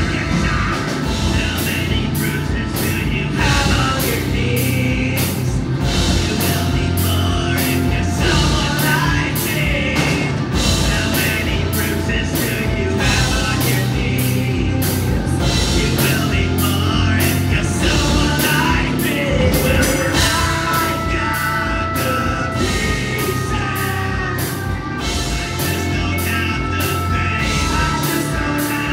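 Live rock band playing loudly through a PA: drum kit with steady cymbal hits, electric bass and electric guitar, with a singer's vocals over them.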